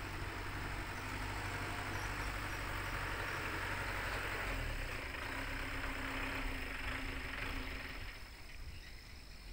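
Heavy machinery engine running steadily, with a low rumble, fading down near the end.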